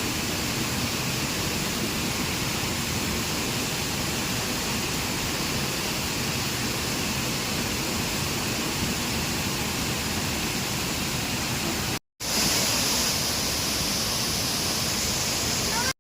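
Waterfall rushing in a steady, even roar of falling water. It cuts out for a moment about twelve seconds in, then resumes slightly brighter.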